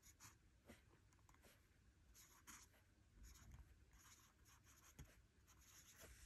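Faint scratching of a Lamy Studio fountain pen's medium steel nib on paper, in short strokes as a line of words is written.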